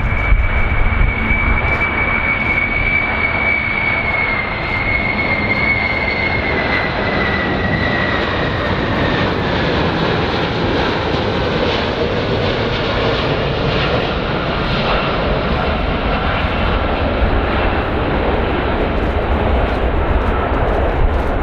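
Airplane engines running loud and steady, with a high whine that slowly falls in pitch a few seconds in.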